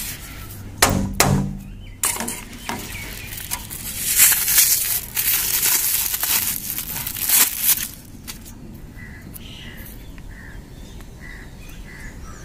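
Harsh rasping and scraping from work on PVC electrical conduit, most likely the pipe being sawn or its end taped. Two sharp knocks about a second in. The rasping runs for several seconds and stops about two thirds of the way through.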